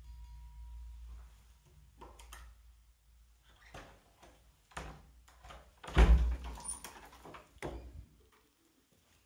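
A string of irregular knocks and clunks. The loudest is a heavy thud about six seconds in, with another knock a couple of seconds later, after which it falls quiet.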